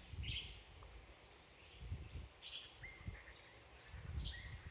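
Faint rainforest ambience: a steady high insect drone, with short chirping animal calls about once a second and a faint low rumble underneath.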